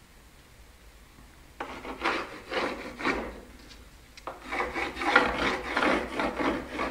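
Pencil scratching along a metal straightedge on rough reclaimed barn wood, drawing a cutting line in a series of strokes. It starts about a second and a half in, pauses briefly just before the midpoint, then goes on louder to the end.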